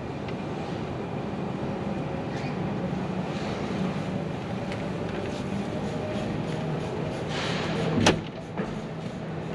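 Inside the cabin of a Hyundai Ioniq Electric rolling slowly: a low steady hum with tyre noise, and no whine from the freshly repaired drive motor. One sharp thump about eight seconds in is the loudest sound.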